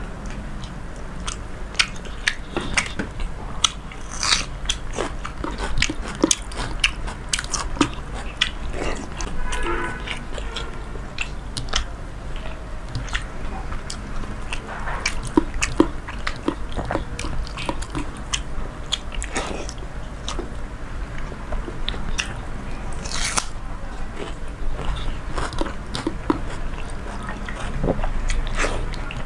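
Close-miked eating sounds from a mouthful of panta rice with fried hilsa, raw onion and green chilli: repeated crisp crunching and chewing, made up of many sharp clicks. There is also wet squelching as the fingers mix the water-soaked rice.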